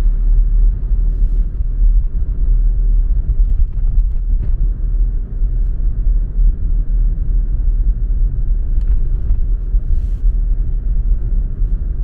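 Road noise inside a moving car's cabin: a steady low rumble from the tyres and engine while cruising.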